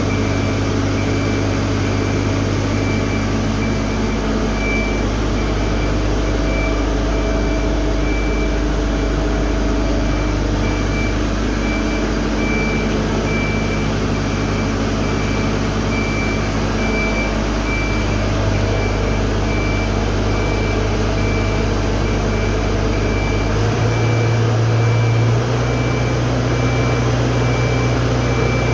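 Hydraulic machinery running steadily with a low hum and a high tone that pulses on and off; the hum shifts up in pitch about 24 seconds in.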